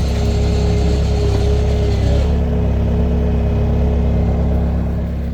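An engine running steadily at idle, with a steady whine above its low hum.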